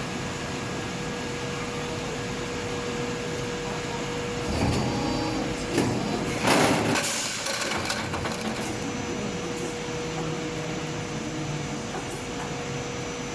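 PET preform injection moulding machine running with a steady hum and a faint steady whine. Between about four and eight seconds in, a louder stretch of clunks and a burst of hissing comes as the mould opens and the preforms are released.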